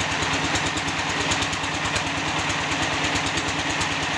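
Concrete block (batako) press machine running steadily, its motor and vibrator making an even, fast-pulsing hum.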